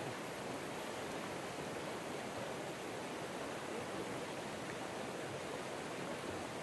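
Steady rush of river water, an even noise with no breaks.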